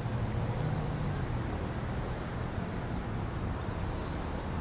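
Steady low background rumble with a faint low hum underneath, unchanging throughout.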